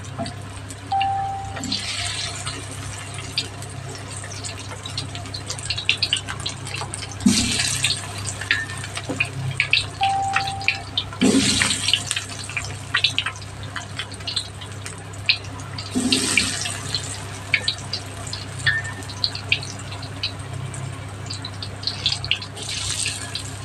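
Battered cauliflower florets deep-frying in hot oil in a steel wok: a steady sizzle full of small crackling pops, with louder hissing surges every few seconds. A steady low hum runs underneath.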